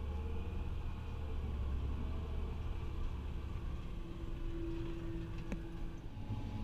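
Fendt 939 tractor engine running steadily under load, a low drone and rumble heard from inside the cab as it drives through a maize field beside a forage harvester. There is a light click about five and a half seconds in.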